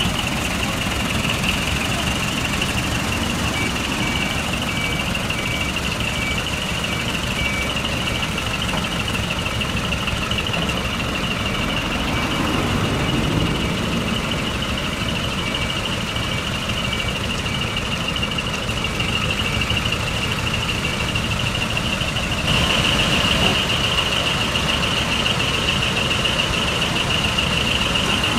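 Diesel truck engines idling with a low rumble, under a steady high-pitched whine. A faint beep repeats about twice a second through most of the first two-thirds, and the overall sound gets louder near the end.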